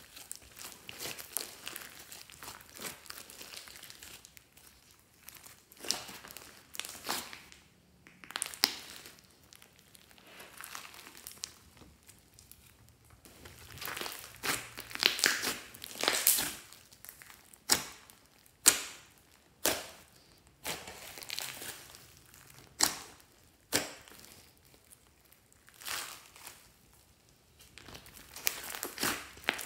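Hands kneading, pressing and stretching a large mass of glossy slime: wet squishing and crinkling, with sharp sticky pops, about one a second in the second half.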